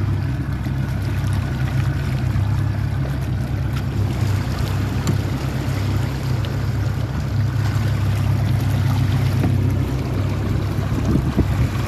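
A small fishing boat's outboard motor running steadily with a low rumble, with water noise and a few splashes near the end as a hooked fish thrashes at the surface beside the boat.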